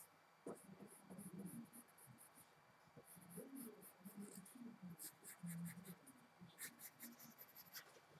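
Faint scratching of a pencil on paper, in short repeated strokes with brief pauses, as lines are drawn.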